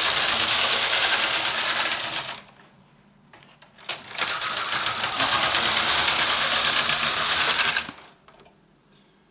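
Brother KH260 knitting machine carriage pushed across the needle bed, knitting punchcard jacquard rows: one pass ending about two seconds in, a click in the short pause, then a second pass of about four seconds that stops near the end.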